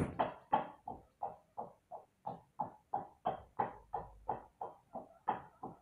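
Guinea pigs squeaking in a steady run of short calls, about three a second.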